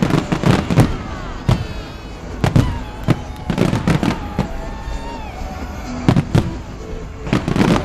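Large fireworks display: loud bangs and crackling bursts in quick clusters, several a second, recurring about every second or two.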